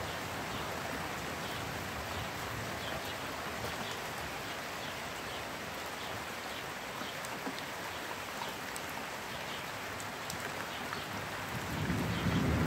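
Steady rain falling, an even hiss with faint scattered drop ticks. Near the end a louder low rumble swells in.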